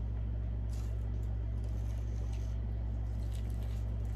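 Close-up sounds of someone chewing fried chicken wings: faint wet chewing and soft mouth clicks over a steady low hum.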